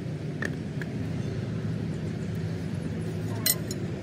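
Machinery running with a steady low hum, a few light clicks, and one sharp metallic clink about three and a half seconds in.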